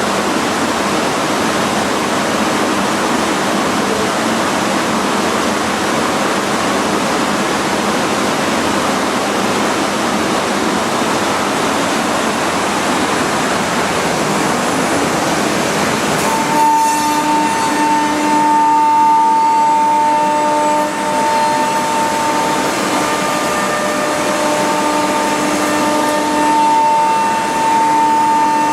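CNC router milling wood, a loud steady machine noise. Just over halfway through, a steady high whine from the spindle joins in and breaks off briefly now and then.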